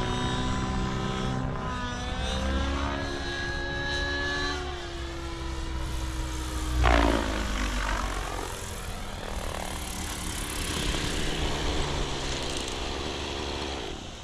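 Nitro RC helicopter (SAB Goblin Raw Nitro with an OS 105HZ-R two-stroke glow engine) in flight: engine and rotor whine rising and falling in pitch with throttle and blade pitch, with a loud swoosh about seven seconds in. The sound drops away at the end as the helicopter sets down.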